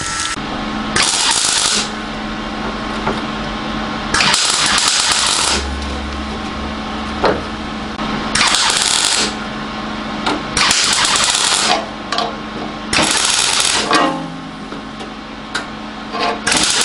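A gas-shielded MIG welder's arc crackling and buzzing in about six short runs of a second or so each, stitching a new steel body panel onto a car's old metal. A steady low hum fills the pauses between runs.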